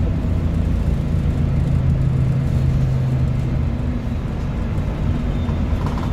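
ADL Enviro 400H hybrid double-decker bus on the move, heard from inside the upper deck: a steady low drivetrain and road rumble. A humming tone comes in about a second in and fades away around three seconds in.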